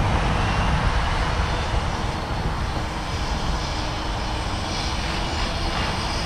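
Autel Evo Lite+ quadcopter drone's propellers buzzing steadily as it flies in auto-tracking mode, with wind rumbling on the microphone.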